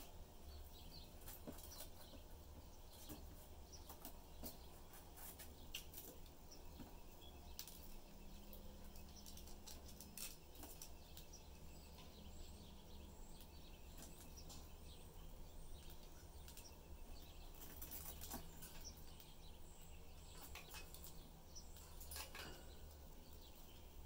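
Pet budgerigars making faint, scattered short chirps and small clicks, over a low steady hum.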